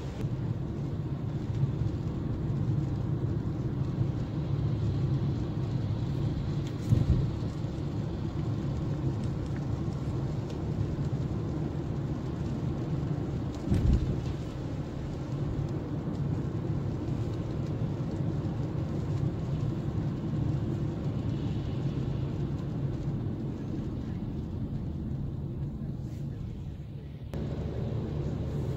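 Steady road and tyre noise heard from inside a moving car on a wet road, with two dull thumps about seven seconds apart.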